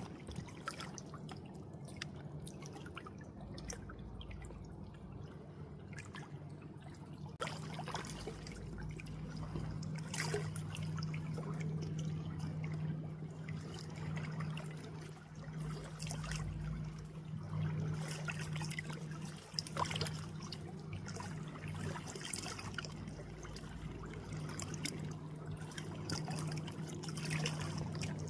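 Water trickling and dripping, with scattered small drips and splashes over a steady low hum.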